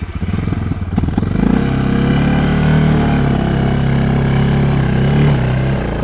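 Suzuki DR motorcycle's single-cylinder engine cranking, catching about a second and a half in, then running steadily under load as it drives the pontoon-fitted bike out of the water onto the shore. The engine is cold and started without choke.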